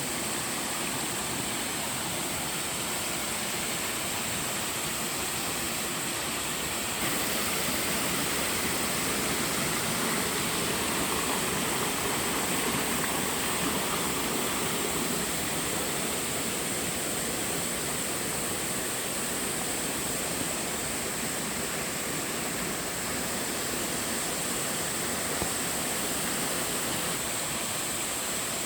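Steady rush of a waterfall on a mountain stream, water falling and splashing continuously; the sound turns a little brighter about seven seconds in.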